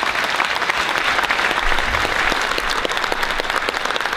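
Audience applauding steadily at the end of a speech: many people clapping at once.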